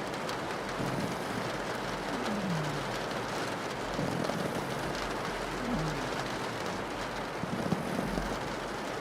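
Steady rain pattering on a window, with a pug snoring over it: a low snore every second or two, one of them falling in pitch.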